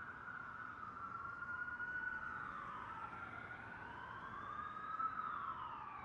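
Siren-like wailing tones, two of them overlapping, slowly gliding up and down in pitch and crossing each other.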